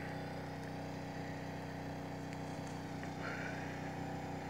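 1979 Pontiac Trans Am's V8 engine idling steadily.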